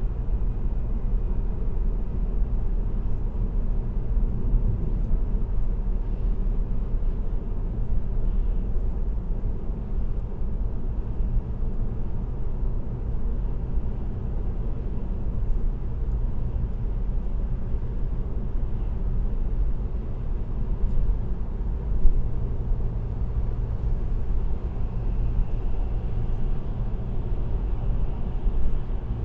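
Car cruising at steady expressway speed: a steady low rumble of tyres on the road and engine, with one brief knock about three-quarters of the way through.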